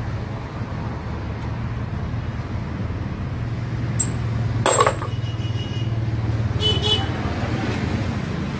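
Metal parts clinking as a toothed timing belt is worked onto an engine's sprockets by hand: a light tick, then a louder ringing clank about halfway through and a few quick clinks shortly after. A steady low machine hum runs underneath.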